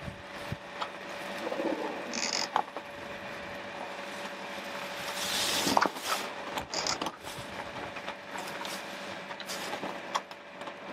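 A spinnaker sock being hauled down over an asymmetrical spinnaker by hand. Its control line runs through a block with irregular clicking and rattling, over a rustling background, and there is a louder rushing swish about five seconds in.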